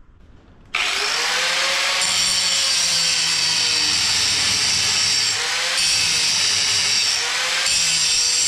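Angle grinder grinding the heads off the steel rivets on a BSA Bantam front brake backing plate. It starts suddenly under a second in and keeps running loud and steady, its whine dipping briefly in pitch now and then as the disc bites into the metal.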